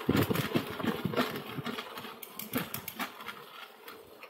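Riding noise from a folding bike: rapid, irregular rattling clicks and knocks over a low rumble that dies away after about two seconds.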